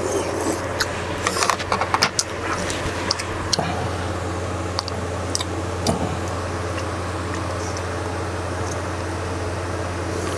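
Eating sounds: slurping and swallowing broth, chewing, and short clicks of a plastic container being handled, most of them in the first few seconds, over a steady low hum.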